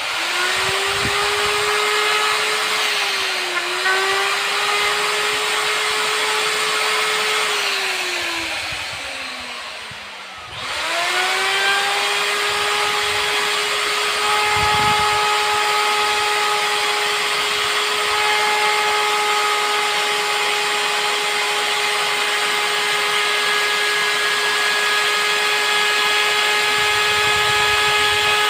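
Hand-held electric router motor spinning up to a steady high whine, with a brief dip in pitch about three seconds in. It winds down and stops around eight to ten seconds in, then starts again and runs up to a steady speed.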